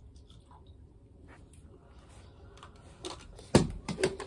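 Faint room tone, then light clicks and clattering of small objects being handled close by, with a sharp knock about three and a half seconds in.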